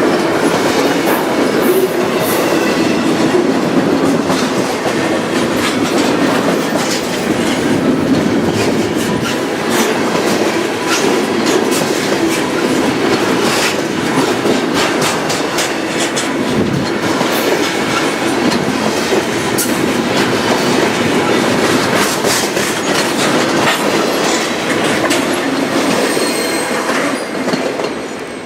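Double-stack intermodal freight cars rolling past at slow speed, their steel wheels clicking rapidly over the rail joints, with a faint wheel squeal. The sound falls off near the end.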